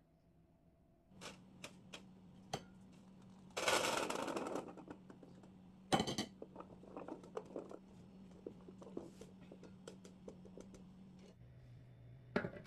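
Peeled garlic cloves tipped out of a stainless mesh strainer onto a paper towel in a steel bowl, with a rustling clatter about four seconds in, then a sharp knock and many small clicks of handling. Near the end a glass lid clinks as it is set over the bowl. A low steady hum runs underneath.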